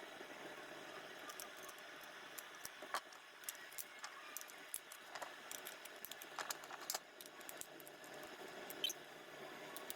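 Faint, irregular small clicks and light handling noise over a steady low hiss.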